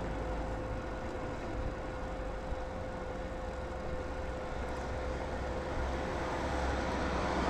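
Steady low wind rumble on the microphone and road noise from riding a bicycle, with motor traffic in the background and a faint steady whine.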